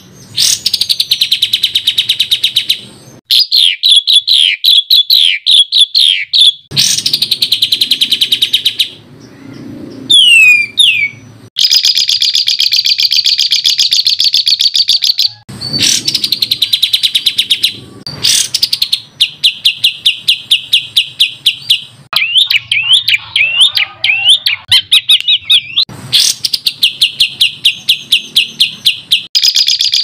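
Songbird singing fast runs of repeated high notes and falling chirps, the rapid-fire 'tembakan' bursts prized in competition songbirds. The phrases last a few seconds each and break off and start again abruptly.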